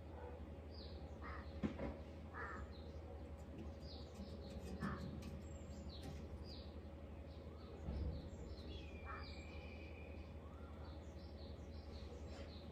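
Birds calling around an open hillside terrace: many short chirps and calls scattered throughout, with one longer drawn-out call about two-thirds of the way through. A sharp knock just under two seconds in and a low thump about eight seconds in stand out as the loudest moments.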